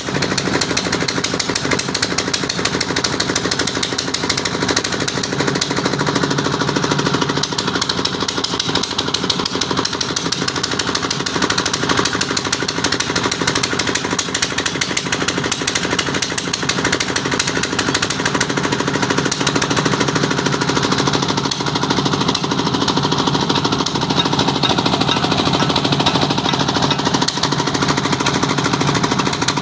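Electric arc welding crackling steadily and densely, with a steady hum underneath.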